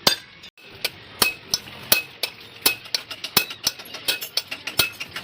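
Metal tools and tractor gear parts clinking and tapping together: sharp, ringing strikes at an irregular pace of about two or three a second.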